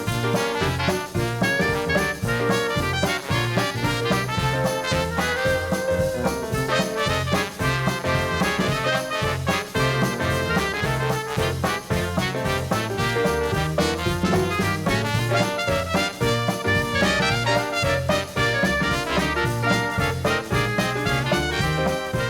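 Background swing music with brass and a steady beat.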